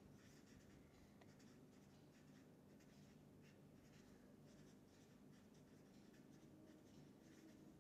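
Faint scratching strokes of a felt-tip marker writing on paper, short strokes in quick succession.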